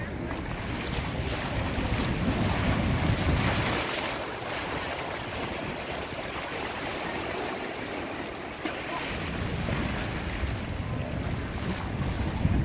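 Wind buffeting the microphone over the wash of harbor water, gusting strongest in the first few seconds and again near the end.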